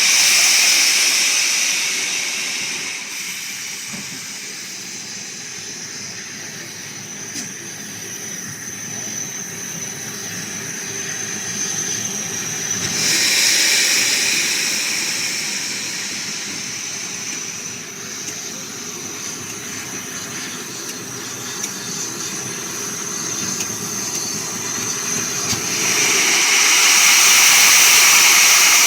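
Steam hissing from a Southern Railway West Country class steam locomotive, swelling loudly three times for a few seconds each over a steady low rumble.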